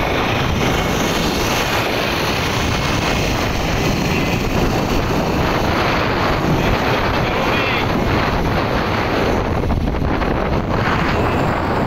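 Steady rush of wind on the microphone from a moving vehicle, mixed with its road and running noise.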